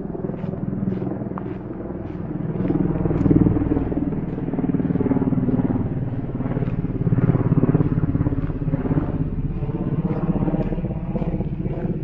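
A motor engine running and rising and falling in loudness over several seconds, with steady walking footsteps.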